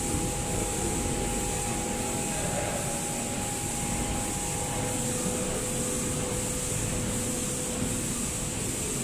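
HCT-530SV LED pick-and-place machine running: a steady mechanical hum and hiss, with a faint whine that shifts to a lower pitch about five seconds in.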